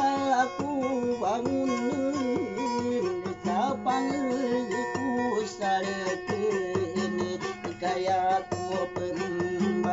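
Acoustic guitar played steadily, with a voice singing along in a wavering, vibrato-like line.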